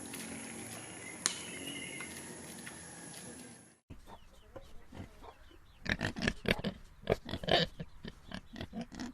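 Pigs grunting. The first few seconds hold a steady background hiss with faint grunts; after an abrupt cut, a quick run of loud, short grunts comes in the second half.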